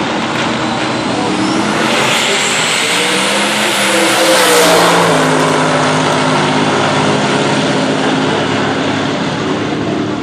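Drag-race car making a full-throttle pass down the strip. Its engine note climbs as it approaches, is loudest as it goes by about four and a half seconds in, then drops lower in pitch as it pulls away down the track.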